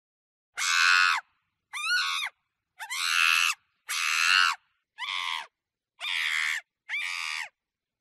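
Monkey calling: a series of seven high-pitched calls, each about half a second long, coming roughly one a second.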